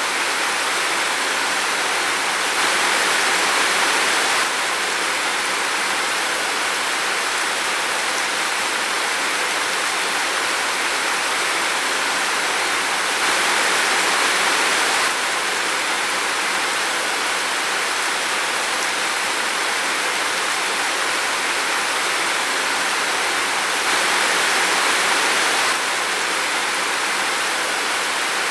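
Steady rain falling in a forest, an even hiss with no distinct drops standing out. It swells a little louder for about two seconds three times, roughly ten seconds apart.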